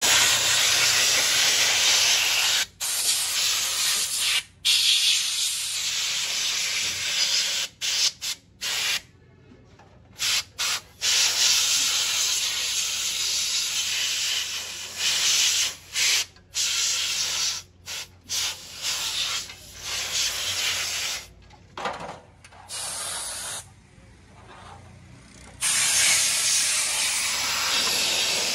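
Compressed-air spray gun hissing as it blasts cleaning fluid over an automatic transmission valve body. The spray starts and stops repeatedly, in long bursts broken by short pauses.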